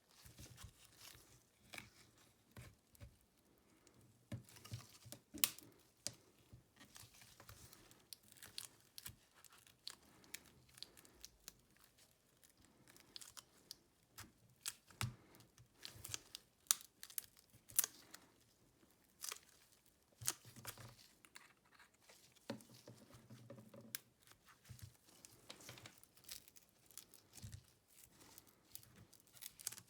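Quiet, close handling sounds of a smartphone repair on a Xiaomi Redmi Note 9S: irregular small clicks and scrapes with tearing and crinkling noises, as of adhesive or film being worked at on the phone's back cover.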